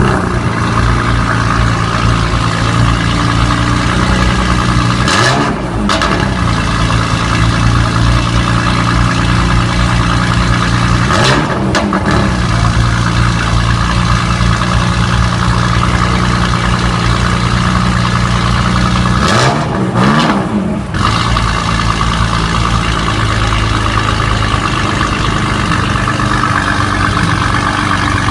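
A car engine held at steady high revs, its pitch dropping briefly and climbing back three times, about five, eleven and twenty seconds in.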